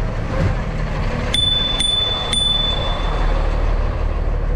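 Bicycle bell rung three times about half a second apart, starting a little over a second in; its single high ring carries on and fades about a second after the last strike. Under it runs a steady low rumble of the box truck's engine as the bike passes alongside.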